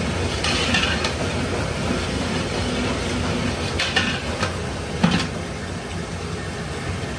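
Steady low rumble from the cook-stall surroundings, with a metal ladle scraping and knocking against a large pot of biryani masala: once about half a second in, then twice around four and five seconds, the last knock the loudest.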